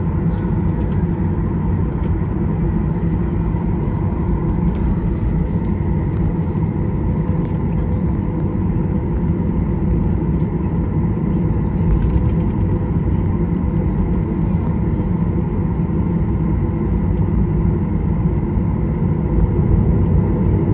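Steady low rumble inside the cabin of a Boeing 737-800 taxiing, its CFM56-7B engines at idle, with a faint steady hum over it; it grows slightly louder near the end.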